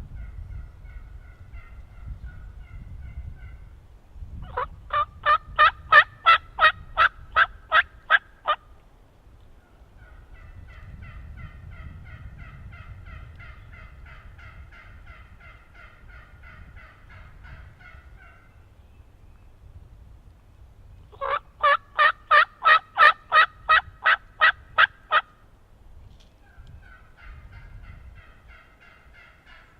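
Wild turkey yelping: two loud series of about a dozen evenly spaced yelps, roughly three a second. Softer pitched calling goes on between the series.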